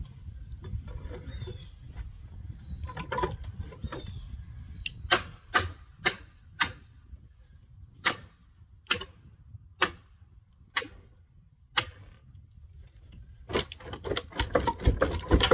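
Sharp knocks on wood framing during wall demolition, spaced out at first, then a quick flurry of blows near the end, over low scraping and handling noise.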